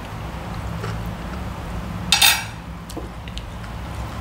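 Eating at the table: a few light clinks of cutlery on plates and, about two seconds in, one loud short crunch of a bite into crisp raw vegetable, over a steady low hum.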